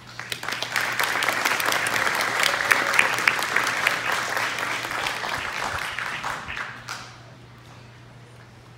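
Audience applauding, swelling within the first second, holding, then tapering off and stopping about seven seconds in.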